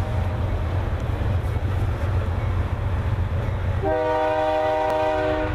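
Diesel freight locomotive air horn sounding for a grade crossing as the train approaches. The end of one blast fades at the very start, then a long multi-note blast begins about four seconds in, over a steady low rumble.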